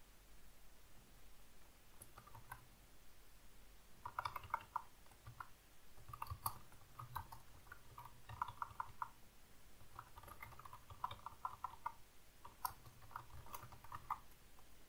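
Computer keyboard typing: short runs of keystrokes with brief pauses between them, starting about two seconds in.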